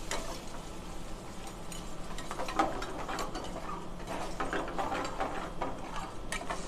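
Steel ladle stirring a thick gravy in a stainless steel frying pan, scraping and clicking against the metal pan in quick, irregular strokes, over a steady low hum.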